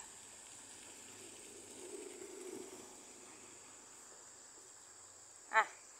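Quiet outdoor background with a faint steady high-pitched tone, a faint low hum about two seconds in, and a short burst of a voice just before the end.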